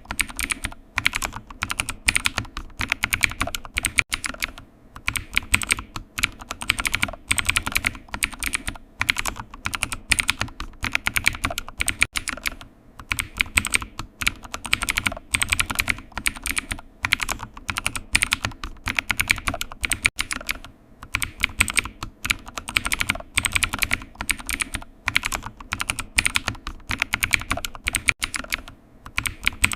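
Computer keyboard typing: rapid runs of key clicks with brief pauses between them.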